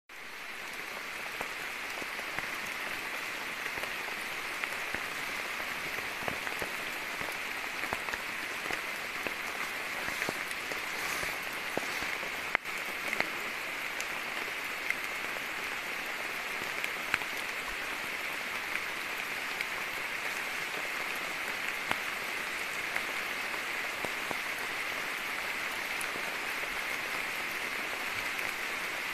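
Steady rain falling on forest foliage: an even hiss with scattered sharp drop ticks throughout.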